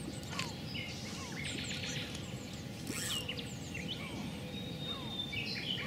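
Several birds chirping, with short downward-sliding calls repeating about once a second, over steady low outdoor background noise.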